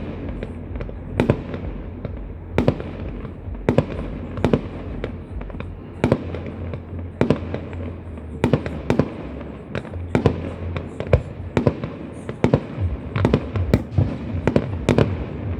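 Fireworks going off: a long, irregular series of sharp bangs, one or two a second, over a steady low hum.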